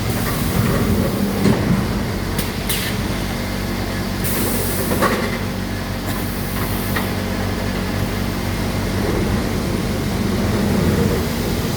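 CNC panel saw running: a steady motor hum, broken by several short hisses and a few sharp clicks as the machine works through its cycle.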